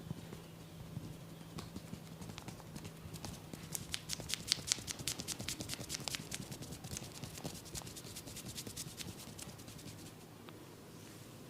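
Hands tapping rapidly on a person's head in a massage: a fast run of sharp light slaps, about eight a second, building up a couple of seconds in, strongest in the middle and thinning out near the end.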